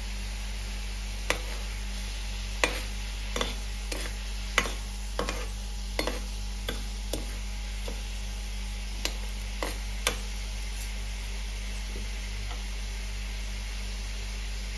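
A steel spoon stirring and scraping sugar syrup in a non-stick kadai: about a dozen irregular clicks and scrapes, thinning out after about ten seconds. The sugar, melted with a little water, is on its way to becoming caramel.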